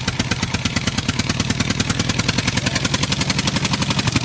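Engine sound running steadily with rapid, even putt-putt pulses, about a dozen a second, over a low hum. It is an added engine sound effect rather than the toys themselves.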